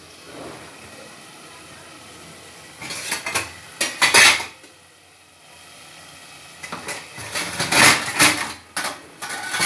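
A metal spoon clattering and scraping against metal cooking pots: a short burst of knocks about three seconds in, then a longer, busier run of clatter from about seven seconds on.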